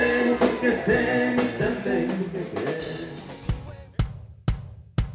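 Music with a full drum kit and bass fades out about three seconds in, leaving four single drum hits, about two a second.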